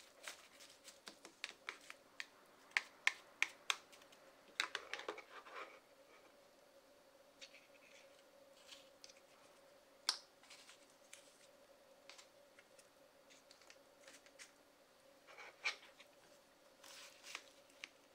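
Plastic spatulas scraping and tapping icy, half-frozen soda sherbet on the chilled metal plate of a Hapi Roll ice cream roll maker. A quick run of sharp clicks and scrapes comes in the first several seconds. After that there are scattered single clicks as plastic mold cutters are set down on the plate, over a faint steady hum.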